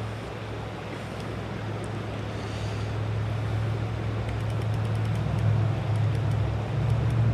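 A steady low hum, engine-like, that slowly grows louder, over an even hiss of running creek water.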